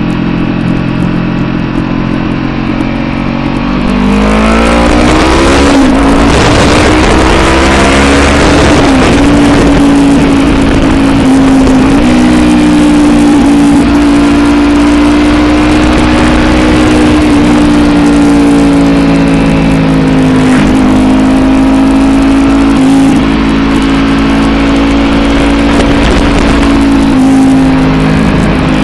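2022 Honda CB500F's parallel-twin engine running under the rider, rising in pitch as it accelerates from about four seconds in, then holding a steady pitch at cruising speed with a few brief dips. Wind rushes over the chest-mounted microphone once the bike is up to speed.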